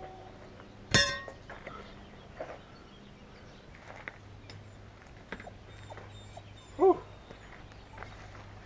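A sharp metallic clank with a brief ring about a second in, from the steel rim and tools on a homemade tire changer, followed by scattered light knocks. Near the end a single short dog bark, the loudest sound.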